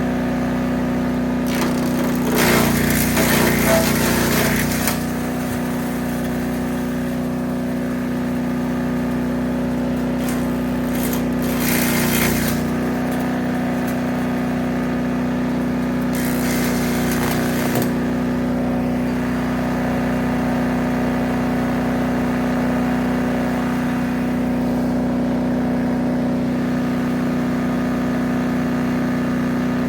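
Small gas engine of a 3-inch wood chipper running steadily. Three stretches of louder, rough chipping noise come as brush is fed in: about two seconds in, around ten seconds, and near sixteen seconds.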